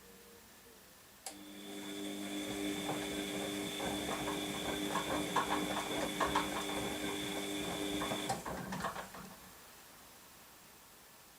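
Washing machine motor turning the drum: a click, then a steady motor whine with irregular knocks from the tumbling load. After about seven seconds the motor cuts off and the sound dies away as the drum coasts to a stop.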